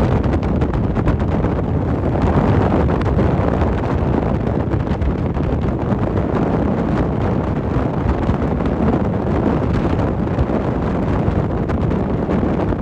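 Steady wind rushing over the microphone of a rider moving at speed, with a low rumble of the ride beneath it.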